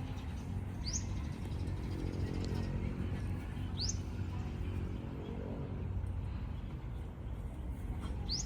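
A bird giving short, sharply rising whistled calls, three of them a few seconds apart, over a steady low rumble.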